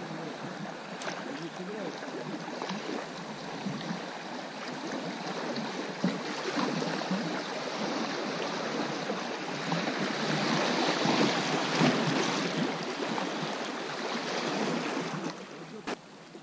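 Shallow river riffle rushing and splashing over rocks as an inflatable boat drifts through it, growing louder toward the middle and falling away shortly before the end.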